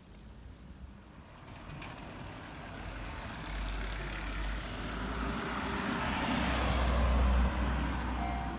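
Electric commuter train approaching and passing: a rumble of wheels on rails that builds from about two seconds in and is loudest near the end.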